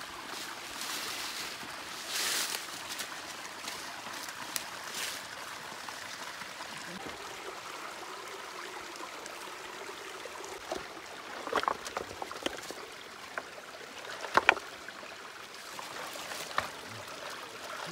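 Shallow mountain stream trickling steadily over rocks, with a few sharp knocks of stones being shifted by hand in the stream bed. The loudest knock comes about two-thirds of the way through.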